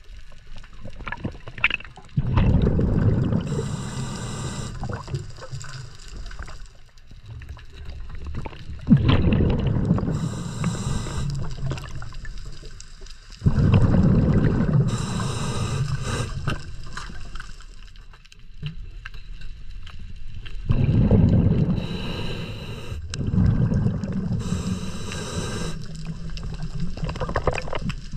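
A scuba diver breathing through a regulator underwater: hissing inhalations alternate with bursts of exhaled bubbles that rumble for a few seconds, about every five to seven seconds.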